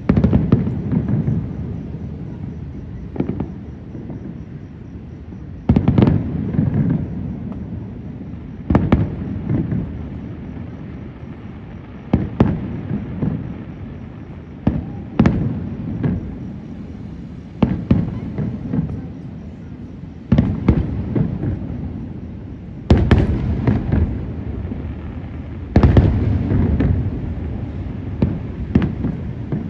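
Aerial fireworks shells bursting about every three seconds, each sharp bang trailing off into a low rolling rumble.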